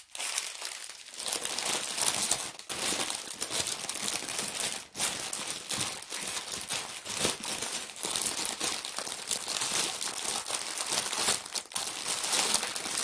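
Plastic bags of diamond-painting drills crinkling as they are handled and shuffled, with uneven sharp crackles.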